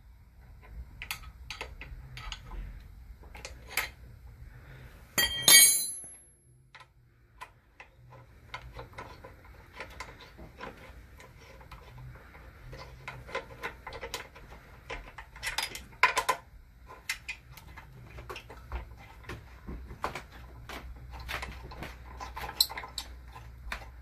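Steel hand tools clinking and clicking against a motorcycle's front brake caliper bolts as an Allen key, levered with a combination wrench, loosens them. There is one loud ringing metal clank about five and a half seconds in.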